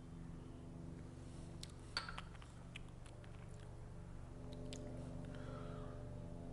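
Faint mouth sounds of a person sipping and tasting a spirit sample, with a few sharp clicks about two seconds in. A small glass knocks against the benchtop a little later, over a steady low hum.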